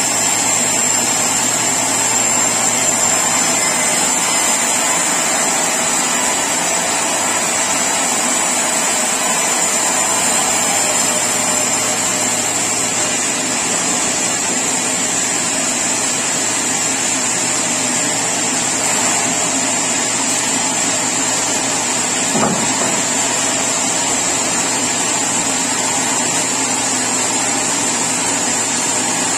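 Sawmill saw sawing mahogany: a loud, steady mechanical noise with a high whine, and a brief knock about 22 seconds in.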